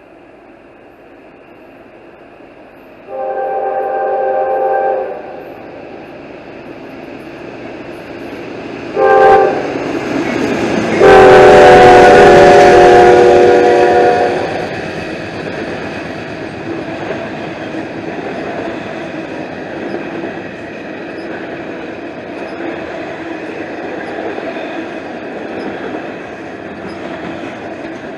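Freight locomotive horn sounding a chord of several notes: a long blast, a short blast a few seconds later, then a loud long blast as the train draws close. The train then runs past with a steady rushing and rumbling of the cars on the rails.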